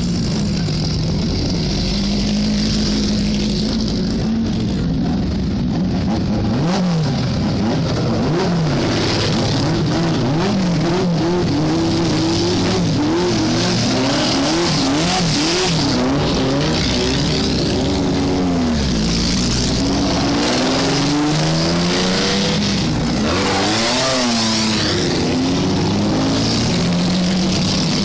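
Historic pre-1961 Grand Prix car engines running and blipped, the cars passing one after another at low speed. The engines rev up and drop back again and again.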